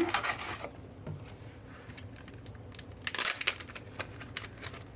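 Packaging crinkling and rustling as it is handled, a run of small crackles with a dense burst about three seconds in.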